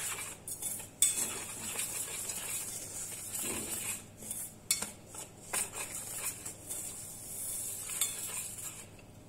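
Wire whisk stirring dry flour, semolina, cocoa and sugar around a stainless steel bowl. It makes a steady scraping swish with frequent clinks of the wires against the metal, and stops near the end.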